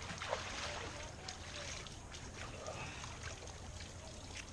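Quiet, steady river water lapping and trickling close by, with scattered small ticks of splashing water.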